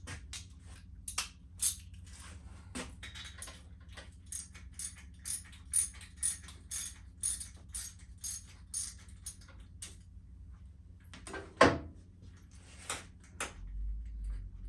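Socket ratchet clicking in short strokes as the front spark plug is worked out of a motorcycle's cylinder head, settling into about two clicks a second, with a louder knock near the end.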